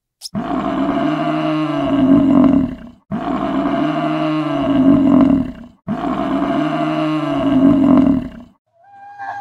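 African buffalo bellowing: three long, deep calls of about two and a half seconds each, alike in shape and each growing louder toward its end, with brief gaps between them.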